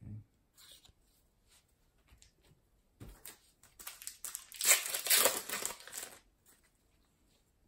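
Foil wrapper of a Panini NBA Hoops trading-card pack crinkling as it is torn open. After a few faint clicks, the crinkle starts about three seconds in and lasts some three seconds.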